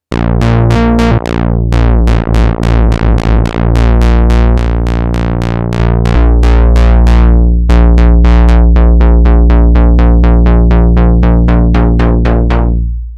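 Native Instruments Monark, a Moog-style monosynth, playing a deep bass line in rapid repeated notes, about four or five a second. Each note opens bright and closes quickly under the filter envelope. The sound fades out near the end.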